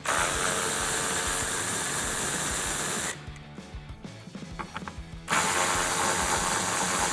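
Cordless electric ratchet with a 10 mm socket running in two steady bursts of about three seconds each, spinning out bolts that hold a plastic trim piece, with a pause of about two seconds and a few small clicks between the bursts.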